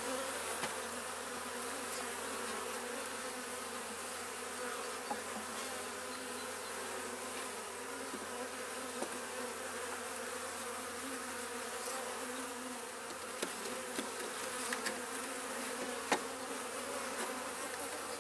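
Honeybees buzzing steadily over an open hive box, with a few faint clicks.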